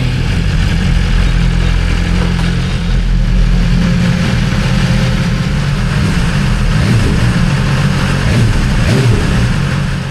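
BMW S1000RR's inline-four engine on its stock exhaust, running steadily while the bike is ridden, under a heavy low rumble.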